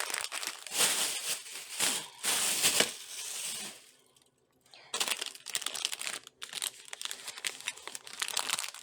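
Plastic grocery bags rustling and crinkling as items are handled and taken out of them, in irregular bursts with a brief pause about halfway through.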